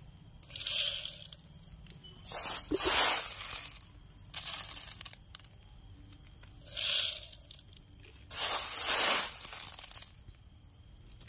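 Handfuls of blue silica gel beads for a transformer breather being scooped and poured by hand into a glass jar: five separate bursts of dry, granular rattling hiss, each about a second long.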